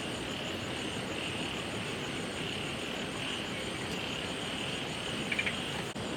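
Night chorus of insects and frogs: a buzzing call that swells and fades about once a second, with a fast high trill above it, over a steady hiss. A brief patter of clicks comes about five seconds in.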